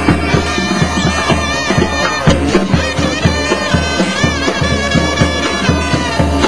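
Loud band music: a steady drum-and-bass beat about two and a half times a second under wind instruments playing a melody.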